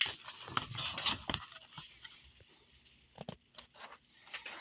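Paper rustling and light scattered clicks as a paperback puzzle book is handled and its pages are turned, busiest in the first second or so and then sparse.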